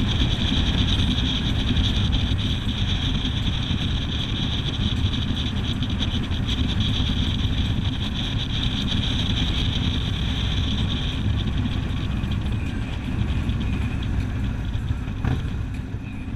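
Road noise from a vehicle driving along a winding road: a steady low rumble with a higher hiss over it that eases off about eleven seconds in.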